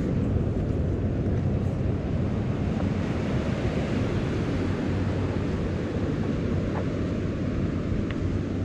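Wind buffeting the microphone in a steady low rumble, over the continuous wash of ocean surf.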